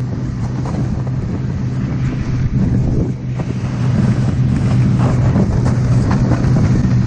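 Snowmobile engine running steadily while riding across open ice, with wind buffeting the microphone; it grows a little louder about halfway through.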